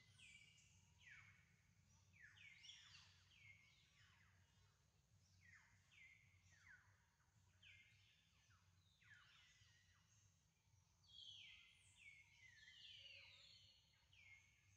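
Faint birds calling: many overlapping high whistled notes, each falling quickly in pitch, repeating throughout over a low steady hum.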